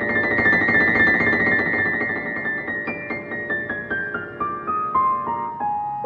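Background piano music: quick repeated notes over held ones, then a melody stepping down note by note through the second half.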